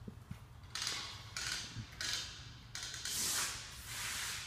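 Footsteps of someone walking on a concrete floor: about five short, gritty shoe scuffs roughly a second apart, over a faint steady low hum.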